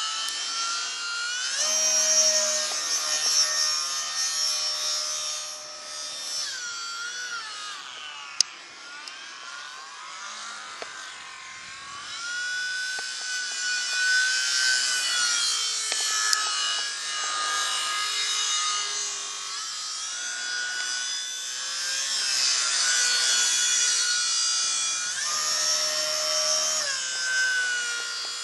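RC model Typhoon airplane's motor and propeller whining in flight overhead, the pitch rising and falling with throttle and as it passes, swelling and fading in loudness. A couple of sharp clicks stand out, about eight and sixteen seconds in.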